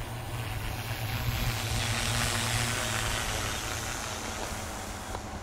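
FPV quadcopter flying low past, its propeller noise and low motor hum swelling to a peak about two seconds in, then fading.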